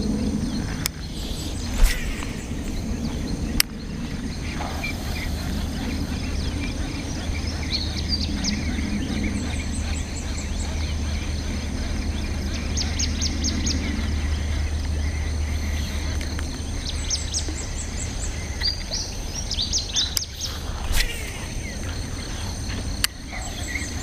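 Small birds chirping in quick runs of short repeated notes, several times over, above a steady low rumble, with a few sharp clicks.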